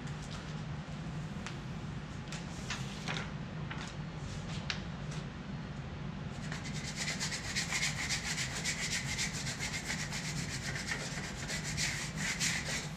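Vinyl stencil sheets and their paper backing crackling as they are handled and peeled. About six and a half seconds in, a spreader starts rubbing rapidly back and forth over the transfer tape, burnishing the vinyl stencils flat onto the panels in a steady run of quick scraping strokes.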